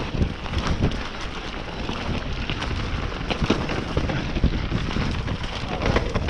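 Mountain bike riding down a rough trail: tyres hissing and crackling over gravel and rock, with frequent sharp knocks and rattles from the bike.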